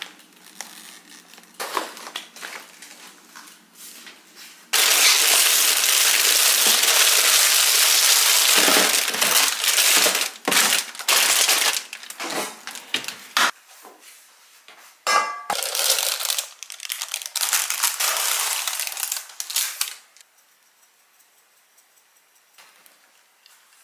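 Plastic grocery packaging crinkling and rustling as it is handled and put away, in irregular bursts with one long continuous crinkle of about four seconds near the start. The rustling stops a few seconds before the end.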